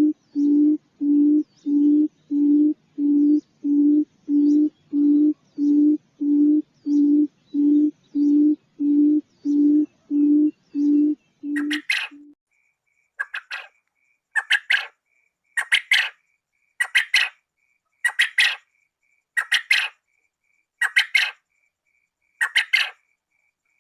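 Quail lure calls. For the first half, a low hooting note is repeated steadily about twice a second; it stops about halfway. Then come loud, sharp, harsh calls about once every second and a half, with a faint fast ticking between them.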